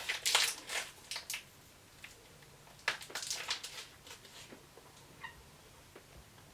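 Crinkly rustling of plastic packaging in two spells, as a jerky bag is handled, with a faint short squeak about five seconds in.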